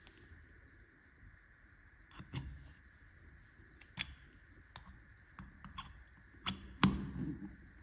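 A few scattered light clicks and knocks of metal parts as the crank handle of a Timemore Chestnut C3 ESP Pro manual coffee grinder is fitted onto the grinder's top and shaft, with the loudest knock near the end.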